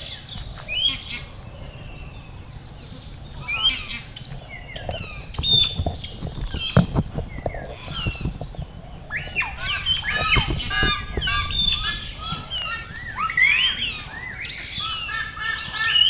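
Many birds calling over one another: dense chirps, short pitch-sweeping calls and honking calls. A few low thumps about halfway through.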